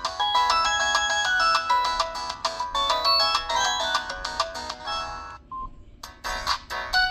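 Preloaded ringtone on a Samsung SGH-T249 phone, playing an electronic melody with several notes at once. It breaks off about five seconds in, and the music starts again about a second later.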